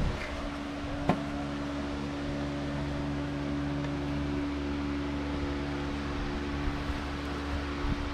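Steady mechanical hum with several pitched tones, like a fan motor running, and a single light knock about a second in.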